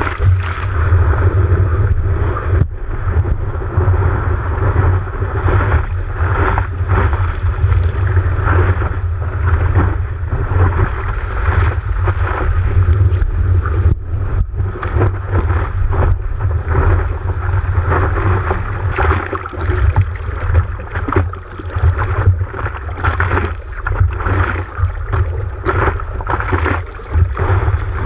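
Seawater rushing and splashing over and around the nose of a longboard as it moves through broken surf, heard from a camera fixed to the board's nose, over a constant heavy low rumble of water and wind buffeting the camera.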